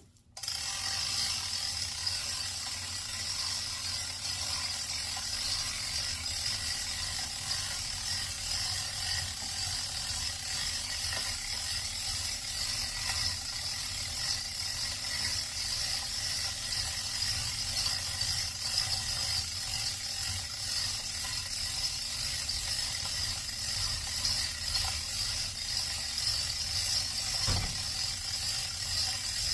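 Chain hoist ratcheting steadily, its pawl clicking rapidly as the hoist raises a riding lawnmower; the clicking means the hoist is lifting, not lowering.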